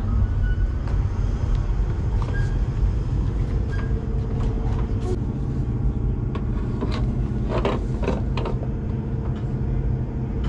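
Steady low machine rumble with a faint hum. In the second half come a few sharp metal clicks and taps as a deck fuel fill fitting is worked open with a tool.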